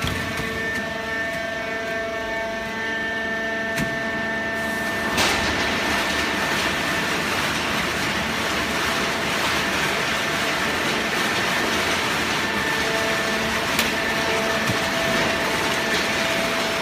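Automatic horizontal cardboard baling press running: a steady mechanical drone with held whining tones, turning noisier about five seconds in.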